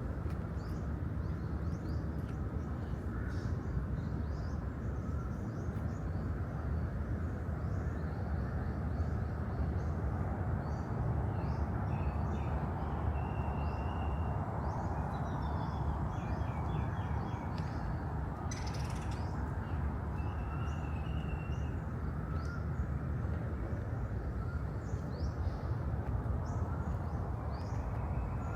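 Outdoor park ambience: many short bird chirps and a couple of brief trills over a steady low rumble.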